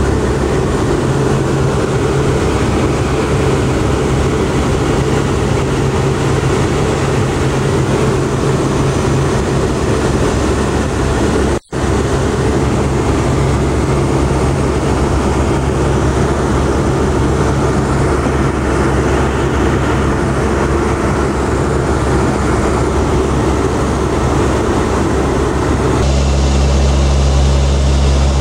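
Steady drone of a C-130's four Allison T56 turboprop engines and propellers in flight, heard inside the aircraft as a loud hum with steady low tones. It cuts out for an instant about twelve seconds in. About two seconds before the end it turns deeper and a little louder.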